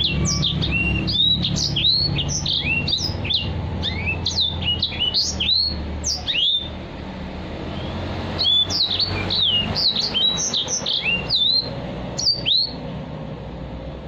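White-rumped seedeater (grey singing finch, 'edel sanger') singing a fast, continuous run of high, sliding whistled notes, breaking off for about two seconds midway and then singing again until near the end. A steady low rumble runs underneath.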